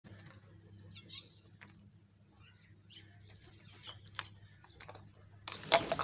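Flock of house crows at a feeding spot: scattered short clicks and brief calls, then a loud rush of flapping wings about five and a half seconds in as much of the flock takes off at once.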